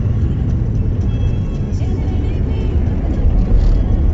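Steady low rumble of a car driving on a gravel road, engine and tyre noise heard from inside the cabin.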